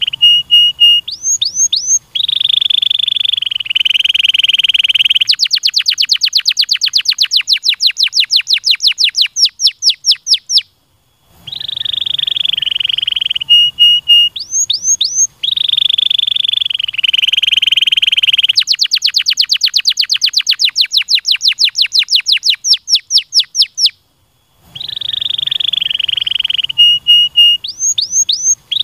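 Domestic canary singing. It gives a sustained buzzy roll, a few short notes and upswept whistles, then a long run of rapid descending sweeps at about six a second, ending in a brief pause. The same song sequence plays twice.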